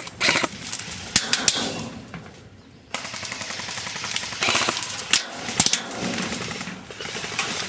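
Airsoft rifles firing rapid bursts of clattering shots, with a short lull about two to three seconds in.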